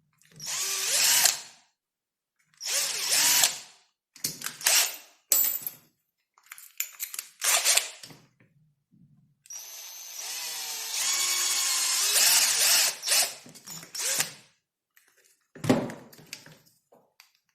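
Handheld power drill run in a series of short bursts, then one longer run of about five seconds, its motor whine rising and falling as it speeds up and slows, while holes are drilled out bit by bit.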